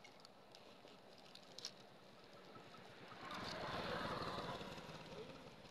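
A motor vehicle's engine passes by: it swells up about three seconds in, is loudest around four seconds, then fades away.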